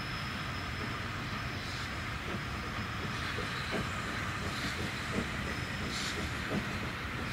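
LNER Thompson B1 4-6-0 steam locomotive hauling a train of coaches round a curve through junction pointwork: a steady rumble with irregular clicks as the wheels cross the points, and a faint high squeal that fades in the first few seconds.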